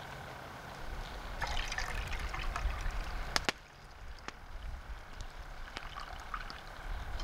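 Hot water being poured and trickling into a cup, with a few sharp clicks. The pour stops with a click about three and a half seconds in.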